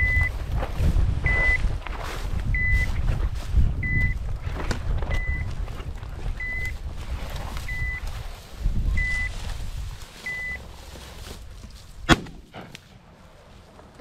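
A bird dog's beeper collar giving short, high beeps about every 1.3 seconds, the point-mode signal that the dog is standing on point, over a low wind rumble on the microphone. The beeps stop about ten seconds in, and a single loud shotgun shot cracks about two seconds later.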